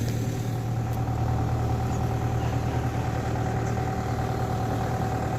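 An engine idling steadily: a low hum with a thin constant whine above it.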